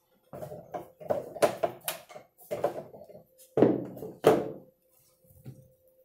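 Wooden birdhouse parts handled and set down: a string of knocks and taps, with two louder thunks about three and a half and four seconds in.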